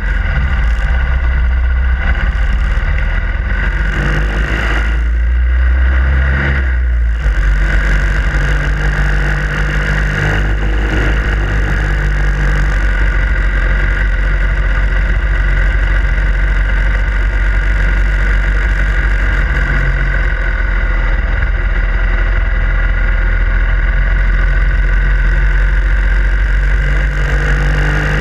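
Harley-Davidson Sportster Iron 883's air-cooled V-twin engine running steadily under way, with a brief change in the engine note about five seconds in.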